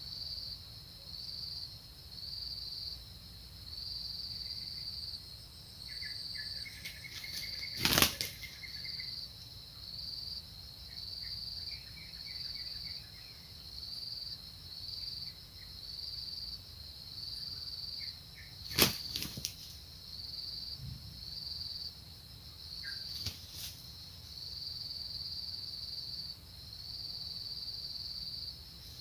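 Red junglefowl roosters fighting: three short, loud bursts of wing flapping as the birds leap at each other. Under them a high insect buzz pulses about once a second, with a few faint bird chirps in the first half.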